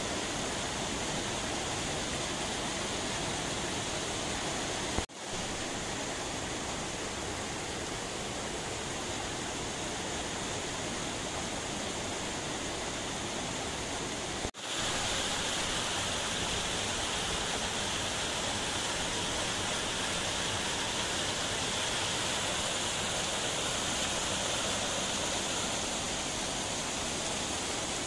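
Steady rush of a mountain stream tumbling over rocks. The sound briefly drops out twice, about five seconds in and again about halfway through.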